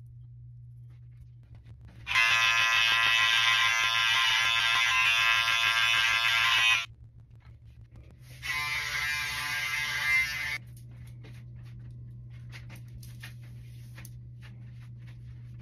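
Electric hair trimmer buzzing loudly in two stretches: one about four and a half seconds long starting about two seconds in, and a shorter one of about two seconds starting about eight and a half seconds in. Between and after them there is only a low steady hum with scattered light clicks.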